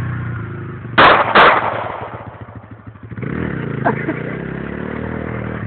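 Two 9 mm Glock 19 pistol shots fired in quick succession, under half a second apart, over the running engine of a Kawasaki KLX140 dirt bike. The engine sound fades for a moment about two seconds in, then comes back.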